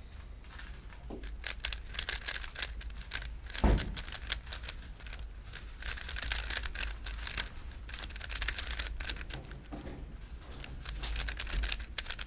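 A 3x3 speedcube being turned by hand: runs of quick plastic clicking turns broken by short pauses, as the blindfolded solver executes from memory. One louder thump about four seconds in.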